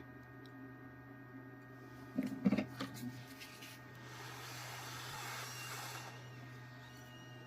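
Soldering work on a phone's charging jack: a cluster of small clicks and taps from tools about two seconds in, then a soft hiss lasting about two seconds, over a steady low hum.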